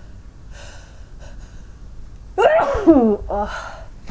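A person sneezing. Short gasping breaths come first, then a loud voiced sneeze about two and a half seconds in, its pitch falling, and a shorter voiced burst right after. It is a sneeze that could not be held back.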